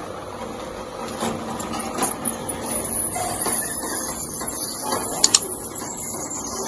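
A machine running steadily, with a few faint knocks and a sharp double click about five seconds in.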